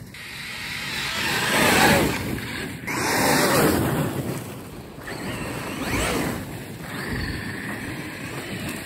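Traxxas X-Maxx brushless electric RC monster truck driving through snow: the motor's whine rises and falls with repeated bursts of throttle, over the rushing of its tyres churning snow.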